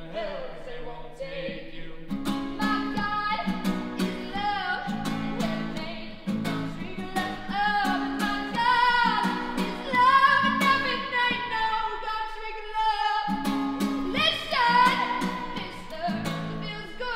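A woman singing long, wavering held notes over a strummed acoustic guitar. The guitar drops out for about a second some twelve seconds in, then comes back under the voice.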